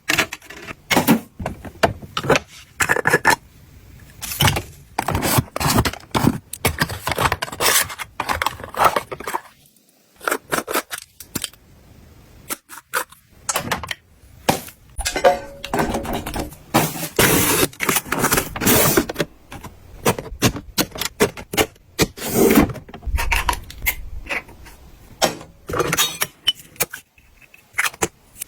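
Containers and packaging being handled and set down: a busy run of taps, clacks, scrapes and rustles, with a short lull about ten seconds in.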